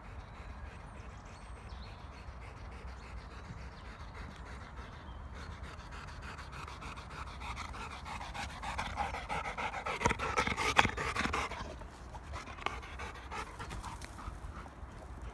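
Labrador retriever panting fast and hard, out of breath from running. The panting is loudest for a few seconds past the middle, then fainter.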